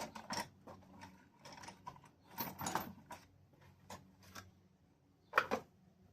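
Small metal parts and hand tools being handled and set down on a workbench: scattered clicks and clatters, with a louder double knock near the end.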